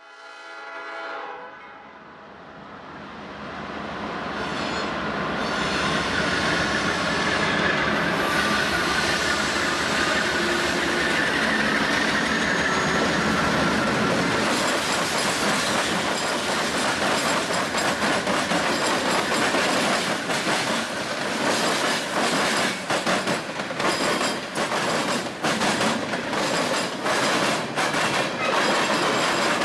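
Norfolk Southern freight train led by two GE Dash 8-40CW diesel locomotives approaching and passing, its horn sounding as it nears. The locomotives' sound builds over several seconds. It is followed by a long, loud run of clicks and clunks as the freight cars' wheels roll over the crossing diamonds.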